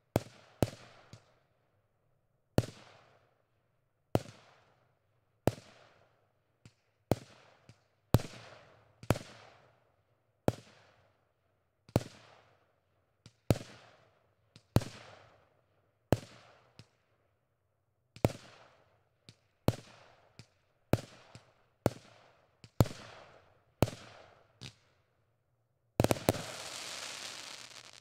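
Consumer multi-shot fireworks cake ("Phenom") firing: about twenty sharp aerial bangs, roughly one every second, each with a fading echo, ending in about two seconds of dense continuous rushing noise.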